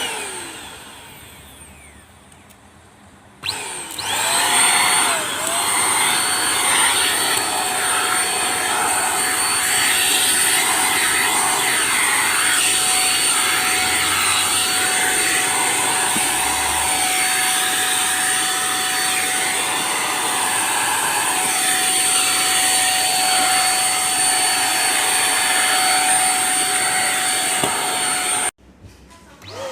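Handheld cordless vacuum cleaner motor: a short burst at the start that winds down, then it is switched on about three and a half seconds in, spinning up and running steadily with a loud suction rush and a high whine, until it cuts off suddenly near the end.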